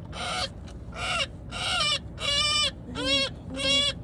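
Pileated woodpecker giving loud, harsh squawks over and over, about seven in quick succession: the distress calls of a trapped bird struggling while it is handled.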